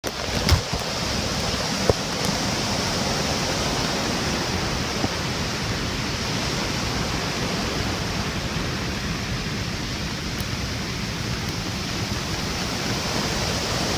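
Floodwater rushing in a steady, dense wash of noise, with two sharp knocks about half a second and two seconds in.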